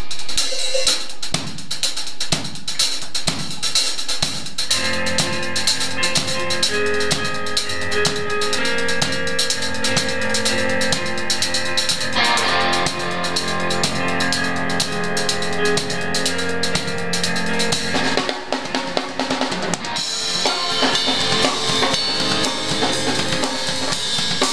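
A band playing in a small studio. A drum kit plays on its own at first, then bass, guitars and electric keyboard come in about five seconds in.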